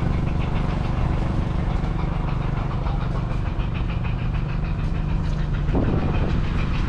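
Antique stationary gas engines running steadily with a low, even chugging and a fast, light ticking over it, about four or five ticks a second.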